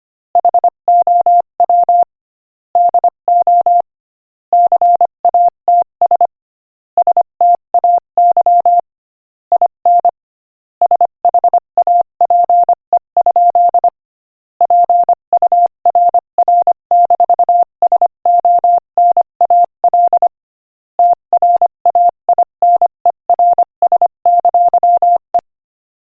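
Morse code sent at 25 words per minute: a single steady beep tone keyed on and off in quick short and long pulses, in groups with short pauses between words, stopping shortly before the end.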